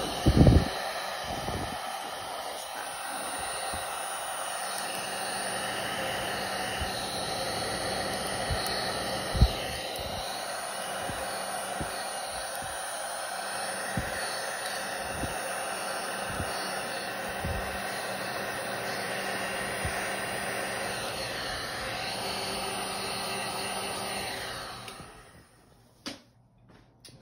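Heat gun running on low, a steady blowing whir, passed over freshly poured epoxy resin to pop the surface bubbles. It switches off about 24 seconds in, followed by a few light knocks.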